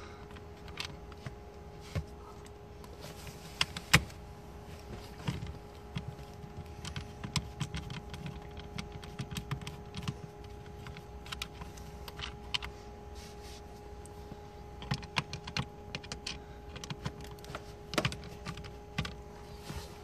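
Irregular small clicks and taps of a screwdriver working screws and plastic parts on a car's steering column, with a few sharper knocks. A steady faint hum runs underneath.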